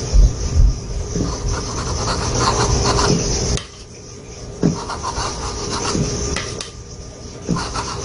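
A steel palette knife scraping and rubbing paint on a small stretched canvas and palette, a dry rasping sound that breaks off briefly twice. There are two low knocks right at the start.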